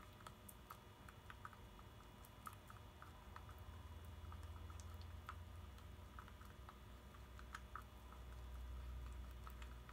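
Faint, irregular small clicks and taps of a spatula stirring thick slime mixture in a small plastic jar, over a low steady hum.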